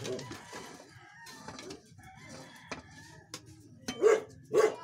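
A metal ladle scooping thick rice porridge out of a rice cooker pot, with a few light clinks. Near the end come two short, loud animal calls about half a second apart.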